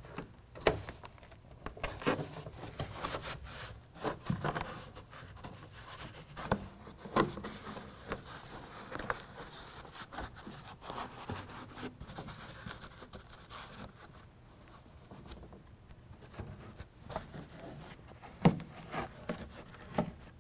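Hands pressing and patting a BedRug liner's carpet-faced, foam-backed sidewall panel against the pickup bed wall, seating its hook-and-loop fastener pads. It makes irregular soft taps, rubs and short scrapes with light rustling between them.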